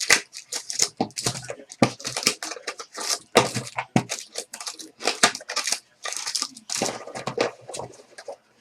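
Foil trading-card packs being torn open and the cards handled, with wrappers crinkling and rustling in irregular bursts.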